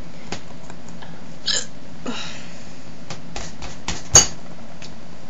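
A person hiccuping: several sharp, sudden hiccups, the loudest about four seconds in, with a short breathy rush of air around two seconds in, over a steady background hiss.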